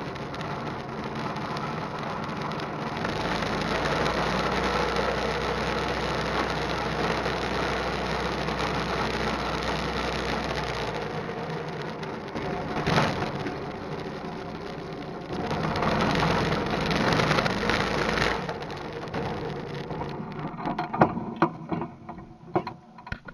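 Harbor Freight 212cc single-cylinder go-kart engine running under way, freshly rebuilt carburettor, rising and easing in loudness with wind and tyre noise over it. Near the end the engine sound falls away into a few sharp knocks.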